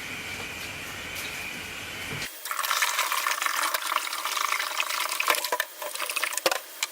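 Water running into a fermenter to top up the wort to about 22 litres. A steady full rush changes abruptly about two seconds in to a thinner, splashier pour.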